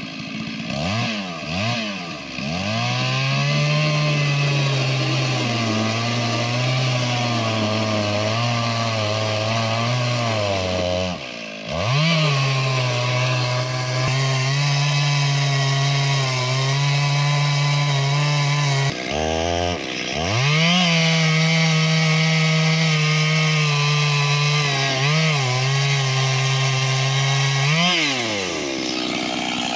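Two-stroke chainsaw on an Alaskan-style mill running at full throttle while ripping lengthwise through a log. The engine revs up in the first few seconds and holds high and steady under load. It dips briefly twice, about a third and two-thirds of the way in, and revs down near the end.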